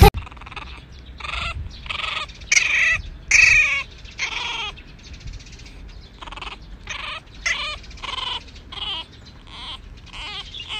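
French bulldog puppy whimpering: a long string of short, high squeaks and whines, some bending in pitch, loudest a few seconds in.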